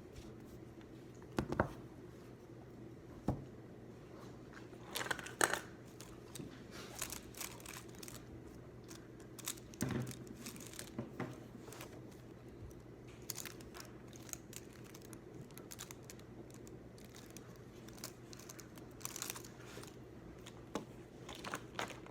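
Paper rustling and crinkling, with scattered light taps and clicks, from studying at a desk, over a steady low hum.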